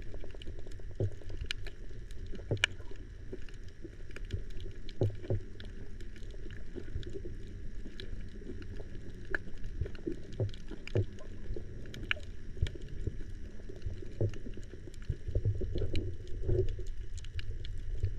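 Underwater sound picked up by a submerged camera over a coral reef: a low, muffled water rumble with scattered sharp clicks and crackles throughout, swelling a little louder near the end.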